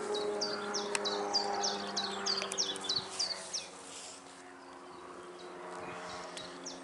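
A flying insect buzzing with a steady drone that slowly shifts in pitch. Over it, a small bird sings a run of quick, repeated high chirps in the first half and again near the end.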